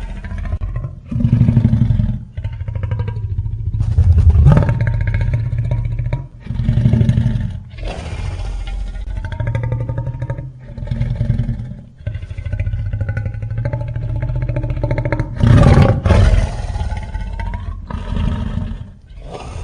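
Made-up sea-monster sound effects: a series of deep roars with wavering, gliding calls between them. The loudest bursts come about four seconds in and near the end.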